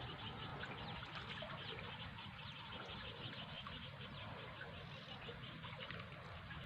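Faint outdoor ambience: a dense chorus of short, high chirps from small animals, several a second, over a low steady rumble.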